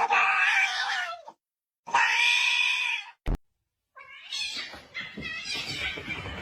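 A cat meowing loudly twice, each call about a second long with a short pause between them. A sharp click follows the second call, and a jumble of quieter sounds comes in about four seconds in.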